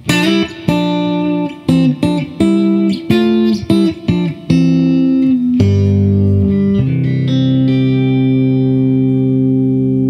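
Electric guitar played through the neck-position Artec humbucker-sized P90 single-coil pickup, with a boost pedal on: short, choppy, quickly muted chords for about four and a half seconds, then one chord struck and left to ring steadily.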